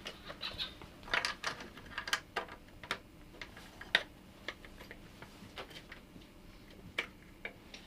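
Irregular metallic clicks, taps and knocks of a BMW VANOS unit and tools being handled as the unit is taken off the engine, busiest about a second in, with one sharp click near the middle.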